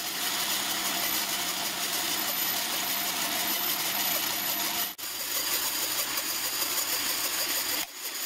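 Pillar drill running, its small drill bit cutting the tapping hole for a 4BA pinch bolt in a small metal part. A steady, even noise that drops out briefly about five seconds in and again near the end.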